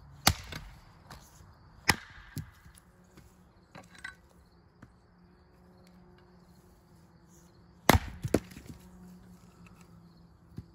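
Dull axe chopping into a firewood round on a chopping block: a run of sharp wooden chops a few seconds apart, the loudest about eight seconds in. The blunt edge needs several blows to split the round.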